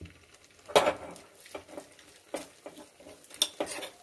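Spoon scraping and clinking against a small frying pan as almonds, cashews and grated dry coconut are stirred in ghee. There is a sharp knock about a second in, and a quicker run of scrapes near the end.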